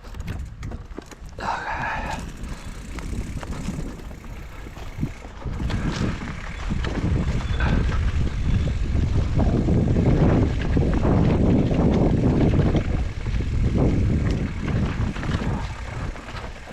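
Mountain bike riding a rough trail: wind rushing over the bike-mounted microphone with rattles and knocks from the bike, building louder about six seconds in. A brief high squeal near the start.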